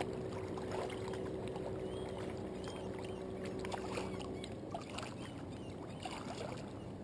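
Steady outdoor background noise, with a faint steady hum that stops about four and a half seconds in and a few faint short chirps.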